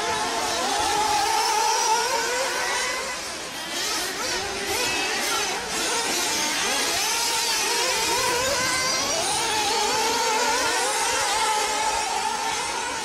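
Radio-controlled off-road cars running on a dirt track, their motors rising and falling in pitch as they accelerate and slow.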